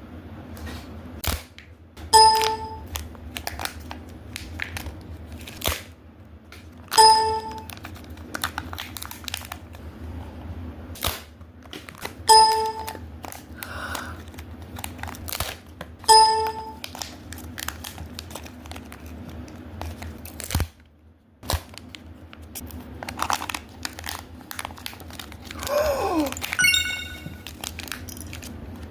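Kinder Joy egg packaging being opened: foil wrappers crinkling and tearing, and plastic egg capsules clicking and cracking. A short ringing tone sounds four times, about every four to five seconds, and a falling swoop comes near the end.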